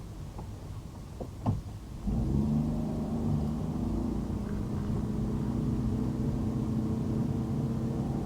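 A car's engine and road noise while driving. A few short clicks come around a second and a half in. About two seconds in the sound steps up in loudness to a steady engine hum.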